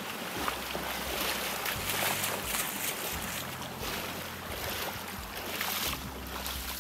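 Boots wading through a shallow stream: water sloshing and splashing steadily with each stride.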